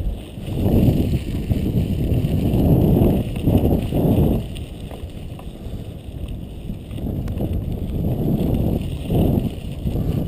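Bicycle rolling over a snowy gravel track, heard from a bike-mounted camera: a low rumbling noise of tyres and wind on the microphone that swells and fades in surges, with a few light rattles of the bike.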